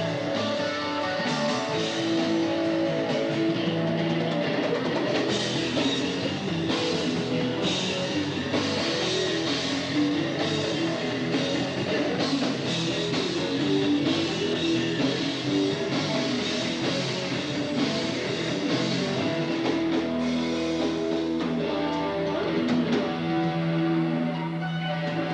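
Rock music with guitar and drums: a band playing an instrumental passage without singing.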